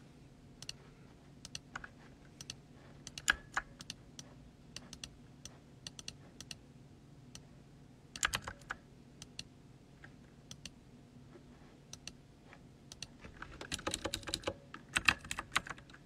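Typing on a computer keyboard: irregular key clicks in short runs, turning into a denser spell of typing near the end.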